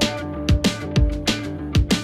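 Background music with a steady drum beat and a held note.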